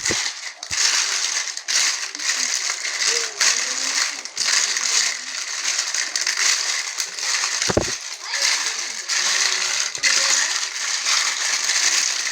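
Dinosaur stampede sound effect: a dense, continuous crunching and rattling clatter, with a single heavy thump a little under eight seconds in.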